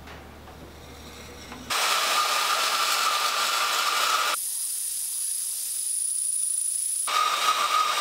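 Metal-cutting band saw starting about two seconds in and cutting through two stacked bars of quarter-inch mild steel flat bar, a steady hiss with a ringing tone. For a few seconds in the middle the sound thins to a hiss with a high whine, then the cutting sound returns.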